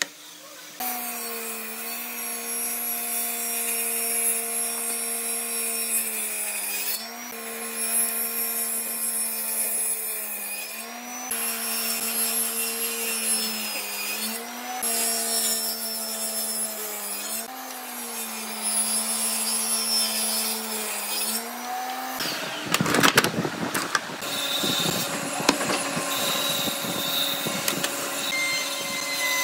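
Electric power tool cutting wood. Its motor runs with a steady whine that sags briefly every three to four seconds as it bites into the wood. About 22 seconds in, the sound changes to a rougher, noisier cutting sound with a few sharp knocks.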